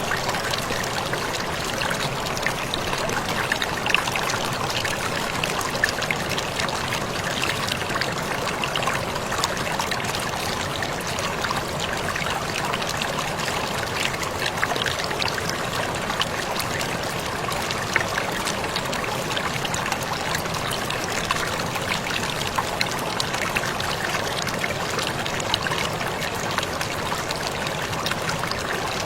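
Waterfall running steadily: a dense, even rush of falling and splashing water, with many small splashes standing out.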